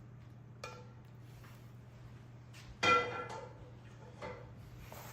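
Utensil clinking against a serving bowl as roasted potatoes are spooned in: a handful of separate clinks that ring briefly, the loudest about three seconds in.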